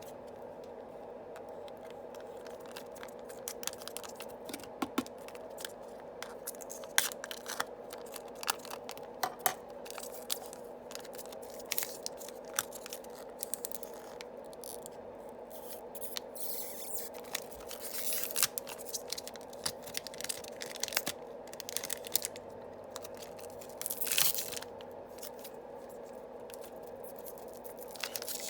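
Yu-Gi-Oh! booster packs being opened by hand: foil wrappers crinkling and tearing, with cards scraping and clicking against each other, over a faint steady hum.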